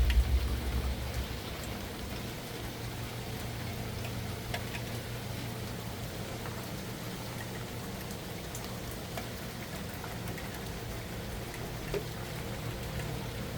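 Steady rain falling, with scattered single drops ticking on a surface. A low rumble fades away in the first second or so.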